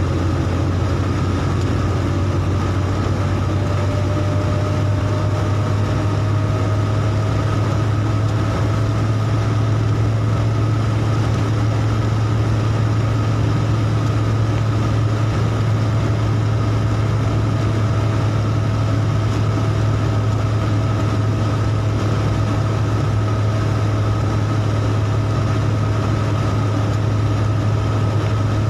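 Car engine and tyre noise heard inside the cabin while cruising on a wet road: a steady low drone with a hiss of tyres over it and a faint whine that rises slowly over the first ten seconds or so, then holds.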